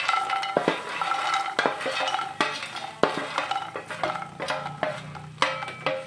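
Puffed makhana (fox nuts) tumbling from a steel tray into a pan as a spoon pushes them off: a quick, uneven run of light clicks and knocks with a metallic ring from the tray.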